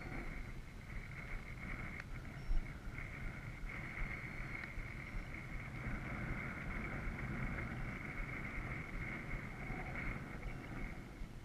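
Motor and propeller of a radio-controlled scale model Cessna 182 in flight: a steady high whine that fades out near the end. Wind buffets the microphone throughout.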